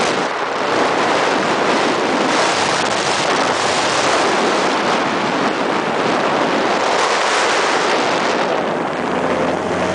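Jet boat under way at speed on a river: a steady, loud rush of wind on the microphone and water spray that covers the engine.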